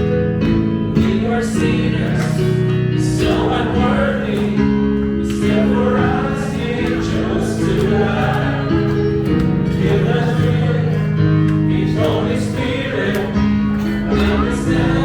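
Worship song: several voices singing together over instrumental accompaniment with a steady beat.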